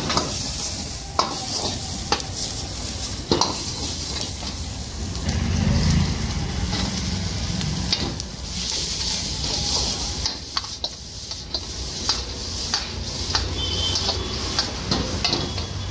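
Chow mein noodles sizzling as they are stir-fried in a wok over a gas burner, a metal ladle scraping and clanking against the wok at irregular moments. A low rush swells briefly about six seconds in.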